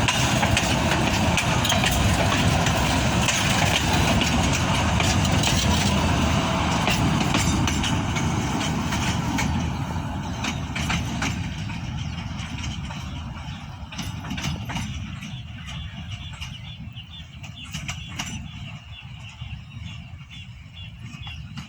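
A train running past with a steady low rumble and scattered clanks from the wheels, the noise fading steadily over the second half as it moves away.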